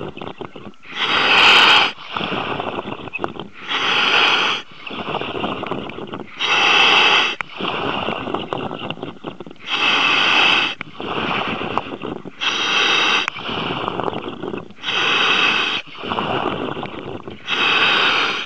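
Commercial diver breathing through a surface-supplied demand regulator, heard over the diver's communication line: a loud rush of air about every three seconds, with quieter breathing and air noise between.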